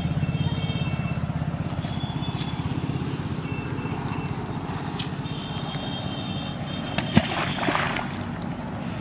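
A handful of bait thrown into a pond hits the water with a sharp slap and splash about seven seconds in. Under it runs the steady low rumble of a motor, slowly fading.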